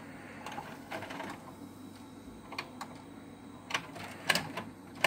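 VHS deck's mechanism clicking and clunking after its front-panel buttons are pressed: a string of sharp clicks over a faint low hum, the loudest near the end.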